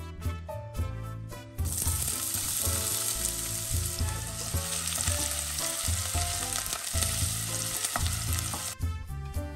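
Diced onion sizzling as it fries in hot vegetable oil in a stainless steel pot, stirred with a wooden spoon. The sizzle starts about a second and a half in and cuts off suddenly near the end, over background music.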